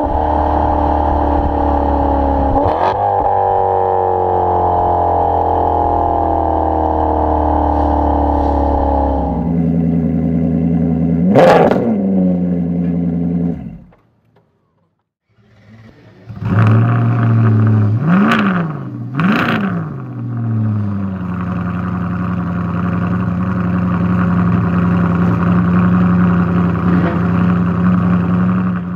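Maserati GranTurismo MC Centennial Edition's V8 idling, its pitch slowly falling as the idle settles, with one sharp rev about eleven seconds in. The sound cuts off for about two seconds, then the engine starts up again, is blipped twice in quick succession, and settles to a steady idle.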